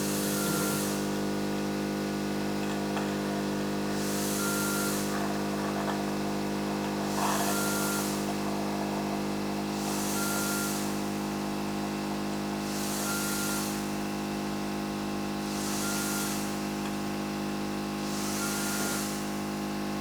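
Respiratory equipment working through a tracheostomy: a steady electric hum with a short rush of air about every three seconds, each with a faint brief tone.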